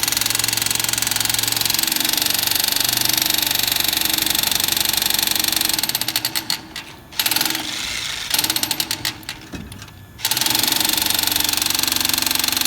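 Jackhammer breaking concrete, a rapid steady hammering that stutters and cuts out for a few seconds about halfway, with short bursts in between, then runs steadily again.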